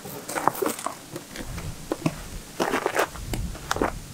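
Footsteps crunching over gritty concrete and dirt, with irregular clicks and scrapes in two clusters and a couple of dull thuds.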